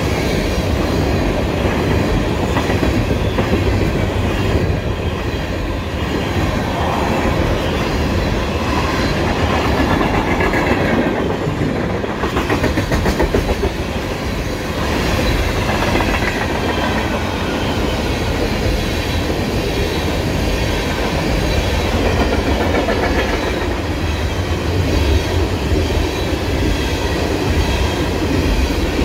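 A freight train of loaded tank cars passing close by: a steady rumble with wheels clattering rhythmically over the rail joints, continuing without a break.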